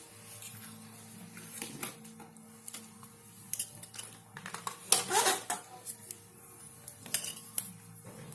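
Small metal tools and parts clinking and clattering as they are handled, in a string of short sharp clicks that is loudest about five seconds in, over a steady faint hum.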